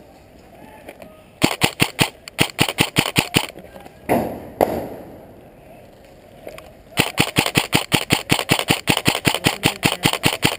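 Airsoft rifle firing close by, two long strings of rapid shots at about seven a second: the first lasts about two seconds, and the second starts about seven seconds in and runs on for several seconds. A brief louder noise falls in the pause between the two strings.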